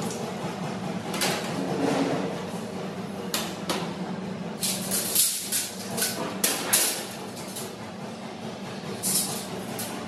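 Sheet-metal supermarket shelving parts knocking and clanking as shelves and perforated brackets are handled and fitted, with a cluster of sharp metallic clanks in the middle and a few more near the end, over a steady low hum.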